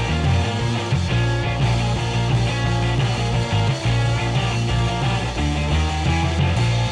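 Background rock-style music with guitar over a moving bass line.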